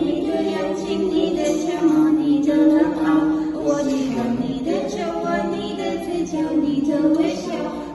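A song sung by several voices together, with no clear instrumental backing.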